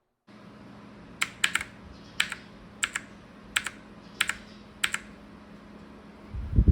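Clicky blue-switch mechanical keyboard keys pressed a few at a time, about nine sharp clicks, some in quick pairs, over a faint steady hum. A louder rushing noise starts just before the end.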